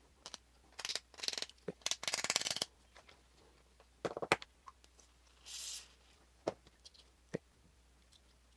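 Small parts of a gas blowback pistol's cylinder bulb and spring being handled by hand while the stronger aftermarket spring is fitted: scattered light clicks and short rustles, with a longer rattling rustle about two seconds in and a soft rustle near the middle.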